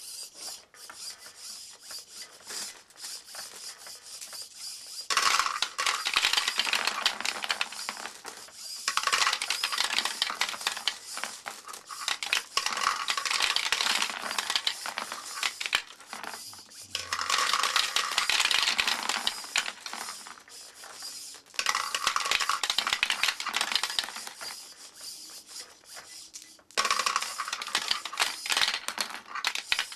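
Glass marbles clattering and rattling through a plastic LEGO marble run. The clatter comes in several loud spells of a few seconds each, with quieter rattling between.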